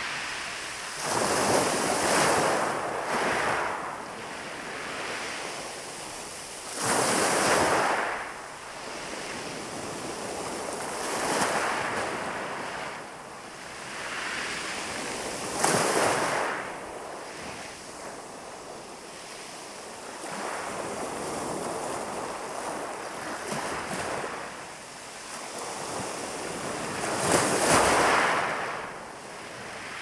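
Calm sea waves breaking on a pebble beach, each wave swelling and washing over the stones every few seconds. The biggest surges come about seven seconds in and near the end.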